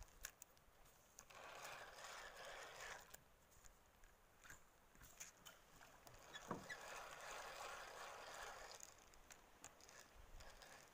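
Faint swishing of water around a small boat, twice, each lasting a couple of seconds, as it is paddled along, with a few light clicks in between.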